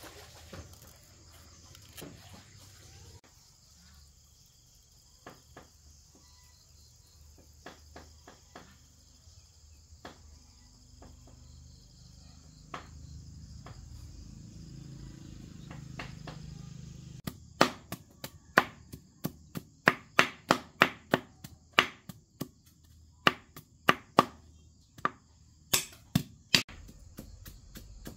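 Insects chirring steadily, and from about two-thirds of the way through, a run of loud, sharp knocks, two or three a second with a brief pause in the middle.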